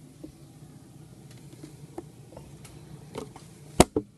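Quiet steady low hum with scattered light clicks and knocks, and one sharp click near the end followed by a smaller one: handling noise as the camera is moved around the engine bay.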